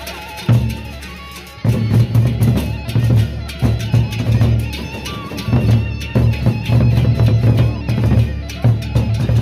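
Gendang beleq ensemble playing: the large Sasak barrel drums beat in a dense, regular rhythm together with gamelan percussion. The full ensemble comes in louder about a second and a half in.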